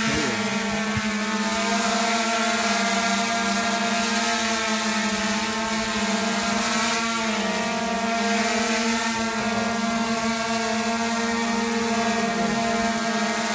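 Ideafly Poseidon480 quadcopter's four propellers and motors hovering with a steady buzz, carrying a hanging load of water bottles. The pitch wavers slightly as the drone shifts position.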